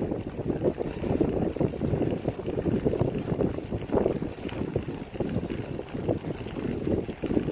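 Wind buffeting the microphone of a camera mounted on a moving recumbent cycle, an uneven, fluctuating low rumble.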